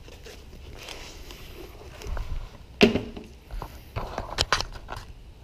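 Handling noise from a chest-mounted camera: clothing and gear rustling against it as the wearer moves, broken by scattered clicks and knocks, the loudest a sharp knock about three seconds in, with a cluster of clicks after four seconds.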